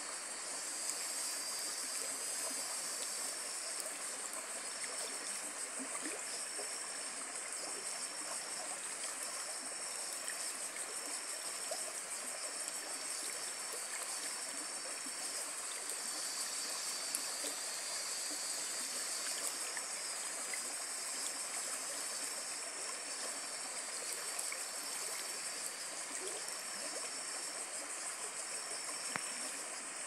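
Shallow stream running steadily over a flat rock bed, water rushing and babbling through small riffles. A faint high-pitched tone pulses on and off about once a second behind it.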